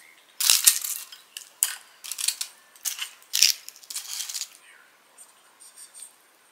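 Crispy deep-fried rice paper (rice-paper tangsuyuk) crackling in several crunchy bursts as pieces are moved onto a plate, with a couple of light knocks of utensils against the dish.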